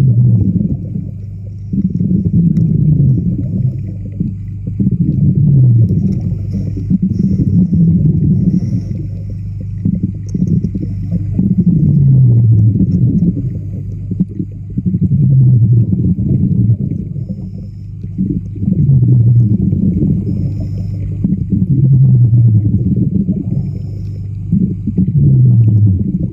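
Muffled underwater sound with a steady low hum, swelling and easing about every three seconds, with a short falling tone in each swell.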